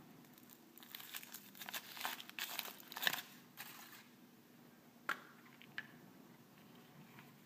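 Thin foil wrapper of a chocolate surprise egg crinkling as it is peeled off by hand, for about three seconds. Then a sharp snap as the hollow chocolate shell is cracked apart, and a smaller click just after.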